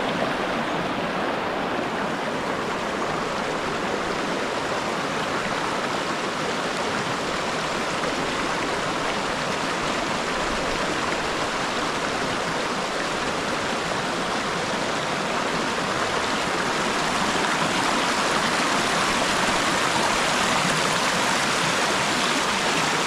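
Water rushing and splashing over rocks in a shallow natural canal fed by a dam's release. It is a steady noise that grows a little louder in the last few seconds.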